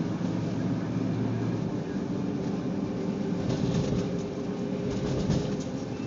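Car driving slowly over a snow-covered road, heard from inside the cabin: a steady low rumble of engine and tyres. A few knocks from about three and a half to five and a half seconds in as the tyres cross the railroad tracks.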